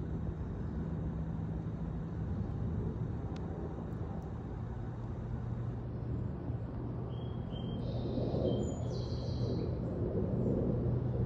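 Outdoor forest ambience: a steady low rumble with a faint engine-like hum, and a few short, high bird chirps about two-thirds of the way through.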